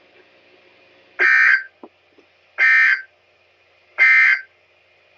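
Three short digital data bursts about 1.4 seconds apart from a NOAA Weather Radio broadcast heard on a weather radio: the EAS/SAME end-of-message tones that close the required weekly test.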